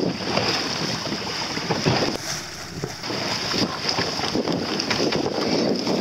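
Wind buffeting the microphone over water rushing and splashing along a small sailing boat's hull as it sails through chop, a rough, uneven noise that eases briefly partway through.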